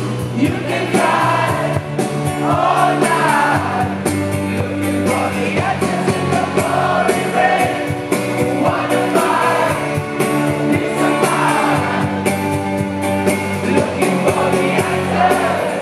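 Live rock band playing a song: a male lead singer sings over acoustic guitar, keyboards, bass and drums, heard from within the audience.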